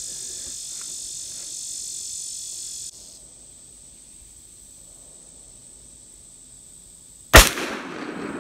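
A single shot from an 1858 Remington black powder revolver (Pietta reproduction), fired on a fresh powder charge: one loud sharp crack about seven seconds in, with a trailing echo. Before it, a steady high insect buzz cuts off suddenly about three seconds in.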